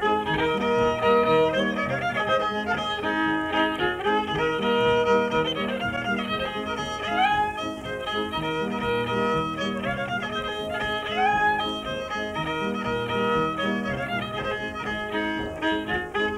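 Background music led by a fiddle, with notes that slide up about seven and eleven seconds in.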